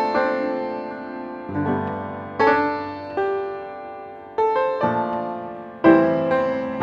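Background piano music: chords and melody notes struck every second or so, each fading away before the next.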